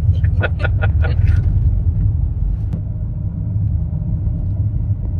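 Car on the move: steady low rumble of road and engine noise, heard from inside the cabin.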